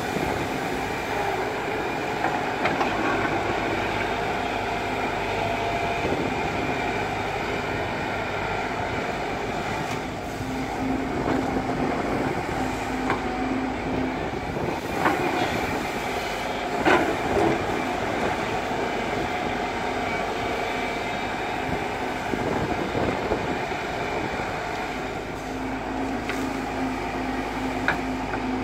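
Excavator diesel engine running steadily under working load, with a held hum that drops away about halfway through and comes back near the end. A few knocks from the machine's metal parts come through in the second half.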